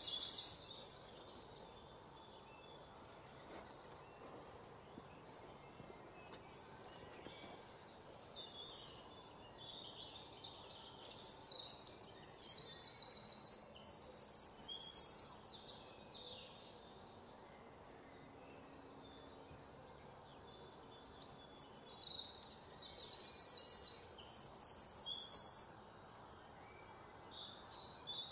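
A bird singing: phrases of rapid high repeated notes, with two loud bouts of several seconds, one about ten seconds in and one toward the end, and scattered quieter chirps between.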